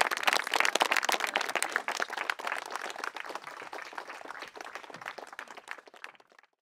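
Crowd applauding, dense clapping that gradually dies down and stops shortly before the end.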